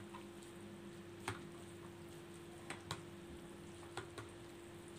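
Metal forks tapping and scraping against plastic bowls as instant noodles are stirred: about five sharp taps scattered over a few seconds, over a faint steady hum.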